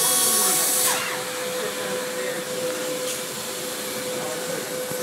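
High-speed milling spindle on a KUKA KR15 robot running with a steady hiss and a constant hum, a little quieter after about a second.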